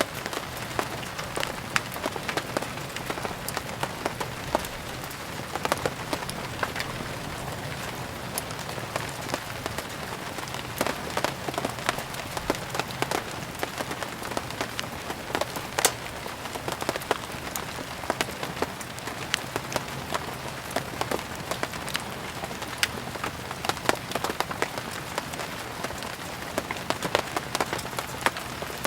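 Steady rain falling on a surface, mixed with frequent irregular sharp pops and clicks: the crackle of burning firewood.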